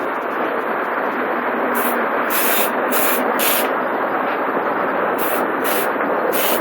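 Garden hose spraying water onto the ground in a steady hiss, with several short, sharper bursts of hiss as the spray shifts.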